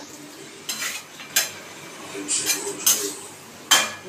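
Metal spatula stirring thick vegetable curry in a metal kadai, clanking against the side of the pan about six times at uneven intervals, with the loudest clank near the end.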